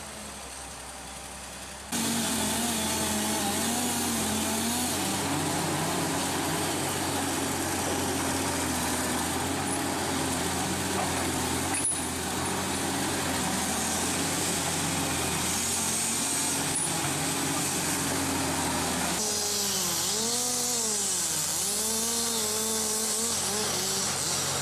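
Engine-driven tree-cutting machinery running under load, its pitch wavering. About two seconds in it starts up suddenly and loud. Near the end the engine pitch rises and falls repeatedly, as in revving.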